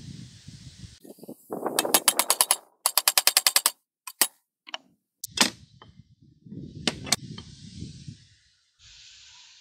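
Hammer tapping a rusted steel axle pin out of the pivot of an antique balance-scale beam: two quick runs of sharp metal-on-metal taps, followed by a few single knocks and some handling of the loosened parts.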